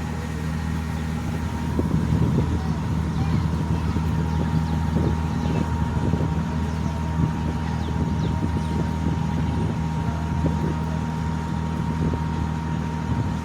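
Passenger boat's engine running steadily, a low hum with a thin steady whine above it.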